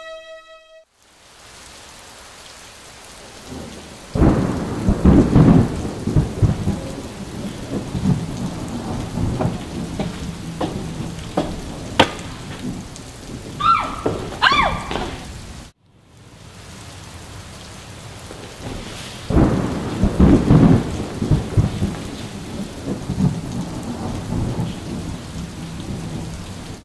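Thunderstorm: steady rain hiss with long peals of rolling thunder, one starting about four seconds in and another about nineteen seconds in, and scattered sharp cracks between them. The sound drops out briefly near the middle.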